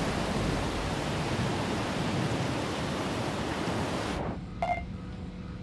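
Storm sound effect: a steady hiss of wind and heavy sea that cuts off suddenly about four seconds in. It gives way to a low electronic hum and one short beep.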